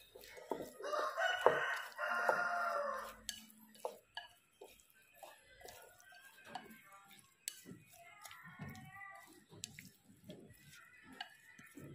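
A rooster crows once, about a second in, in one long call of roughly two seconds; fainter calls follow later on. Light clicks of wooden chopsticks stirring in a ceramic bowl run underneath.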